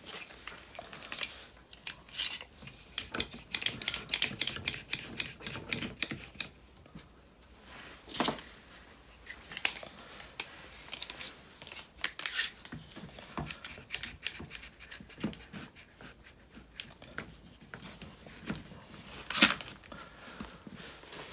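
One-handed bar clamps being set on a steel jig and ratcheted tight to press a rubber bush in: rapid runs of short clicks, sparser later, with a few sharper knocks, the loudest about eight seconds in and another near the end.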